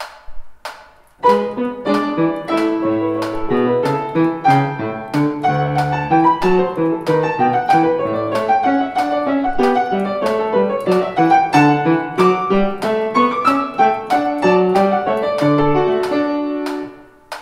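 Piano playing a fast étude passage strictly in time with a metronome's steady clicks, rigid and mechanical. The metronome ticks alone at first and the piano comes in about a second in, stopping just before the end.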